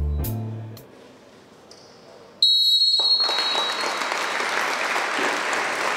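Applause in a sports hall that starts abruptly about two and a half seconds in, with a brief high steady tone at its start. Before it, the tail of guitar music fades away.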